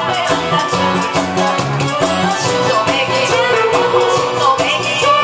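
A woman singing a Korean trot song into a microphone over an amplified backing track with a steady beat.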